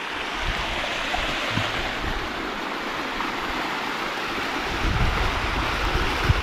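Creek water rushing over rock cascades, a steady hiss. From about five seconds in, wind rumbles on the microphone.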